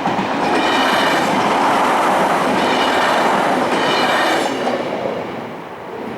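A Trenord TSR electric multiple-unit train passing close by, wheels clattering over the rails, with high whining tones coming and going twice over the rumble. It is loudest for the first four and a half seconds, then fades as the train moves away.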